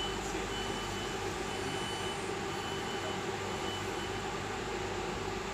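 Steady electrical hum of a stationary Class 323 electric multiple unit with its doors closed, waiting to depart. Faint high beeps repeat at uneven intervals over the hum.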